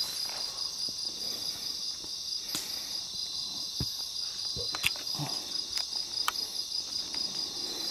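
Insects chirring in a steady, high, finely pulsing trill, with a few scattered light clicks and knocks.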